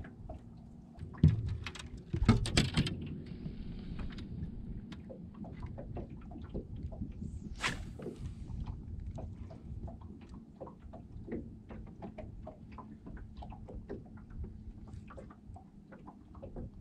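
Fishing rod and reel being worked by hand: a thump about a second in, a clatter of clicks soon after, then a long run of small irregular ticks as the reel is cranked and the rod snapped, over a low steady hum.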